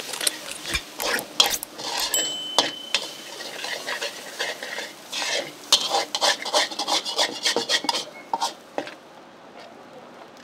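Metal spatula scraping and knocking against a wok as food is stir-fried, over a light frying sizzle. The clatter dies down about eight and a half seconds in.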